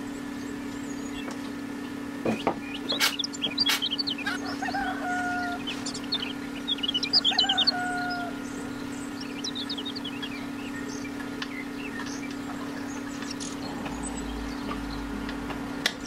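Steady low hum throughout, with a few sharp clicks between two and four seconds in. From about four to eight seconds in there is a cluster of bird-like calls, including two short calls that rise and then hold a level tone.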